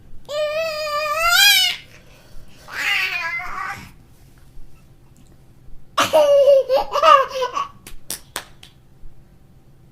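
Baby laughing in three separate bursts: a long, high squeal that rises in pitch, a shorter squeal, then a run of choppy giggles and babble.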